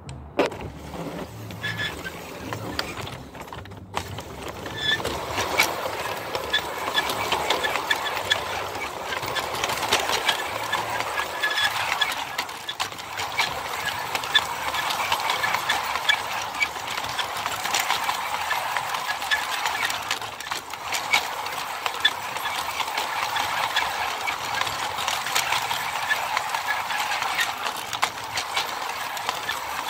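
G scale model steam train starting off about five seconds in, then running steadily along the track. Its wheels and running gear rattle with rapid irregular clicks.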